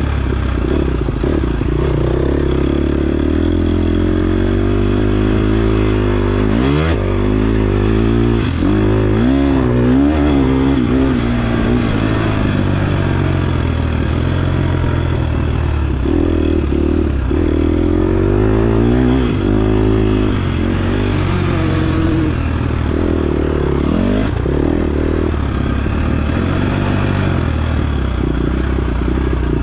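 KTM 250 XC-F dirt bike's single-cylinder four-stroke engine revving hard. Its pitch rises and falls again and again with throttle and gear changes.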